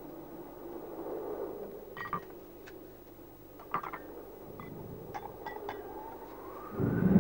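A few scattered light clinks of porcelain bowls and chopsticks, faint against a low hum. Near the end a rising tone leads into loud, tense drama background music.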